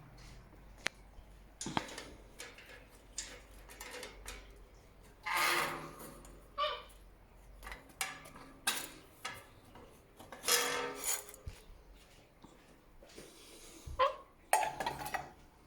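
A young parrot handling its food: scattered beak clicks, knocks and scrapes against a food dish, with a few louder short rasping bursts.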